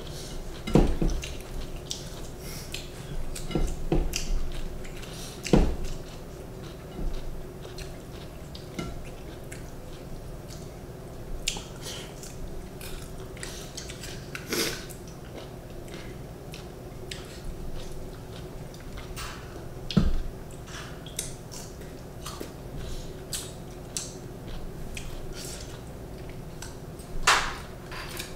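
Mouth sounds of people eating: chewing and crisp bites into fresh vegetables, with scattered small clicks and a few sharper knocks of plates and bowls. A low steady hum sits underneath.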